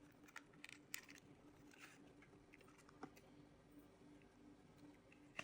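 Faint clicks and rustles of packaging being handled, over near-silent room tone with a faint steady hum. The clicks cluster in the first two seconds, with one more about three seconds in and a few at the very end.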